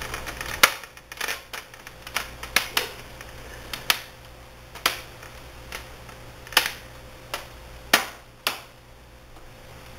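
Plastic snap-clips of a laptop's screen bezel clicking into place as the bezel is pressed down around the new screen: about a dozen sharp, irregular clicks that stop after about eight and a half seconds.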